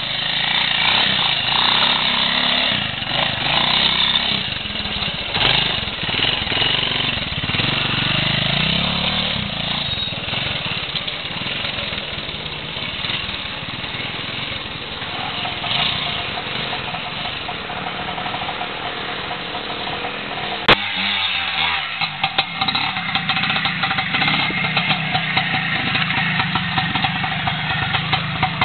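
Classic trials motorcycle engine running, its revs rising and falling through the first part. After a sharp click a little past two-thirds of the way through, it runs more evenly.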